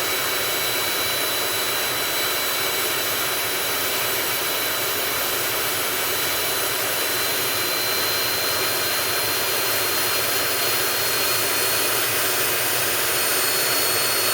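Jet engine running steadily: a dense, even hiss with several thin, high-pitched turbine whines held over it.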